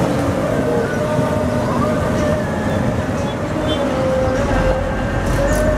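Diesel dump truck engines running as the trucks move slowly, a low rumble with a steady, slightly wavering whine above it.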